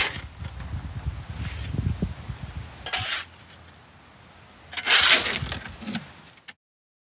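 A steel shovel scraping wet concrete out of a skid-steer's steel loader bucket, four harsh scrapes a second or two apart, the loudest about five seconds in. The sound cuts off suddenly near the end.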